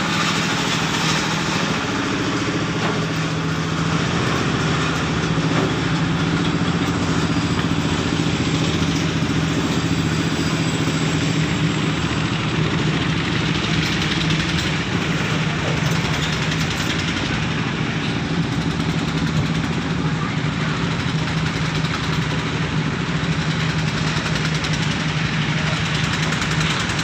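An engine idling steadily, with an even, unchanging pitch.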